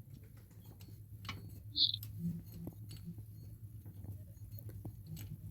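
Faint clicks and taps of a wrench and metal parts being handled while the bolt of an engine's belt idler pulley is undone, with a brief high squeak about two seconds in, over a low steady hum.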